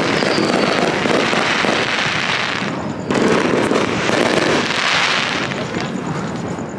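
Aerial fireworks bursting overhead with a dense crackle, a fresh burst starting about three seconds in.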